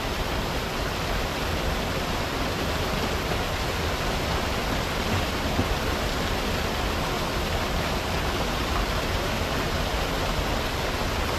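Steady rush of flowing river water, an even hiss and roar without breaks.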